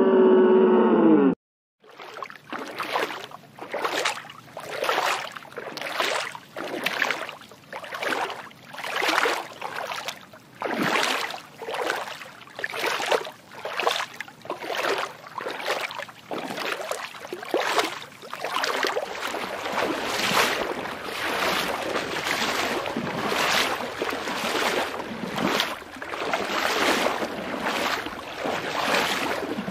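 A held animal call ending abruptly about a second in, then rhythmic whooshing water noise that swells and fades about once a second and grows steadier in the second half.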